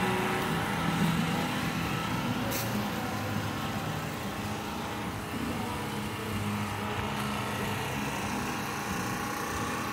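A steady engine running, from a vehicle or machine that cannot be seen, with a brief sharp click about two and a half seconds in.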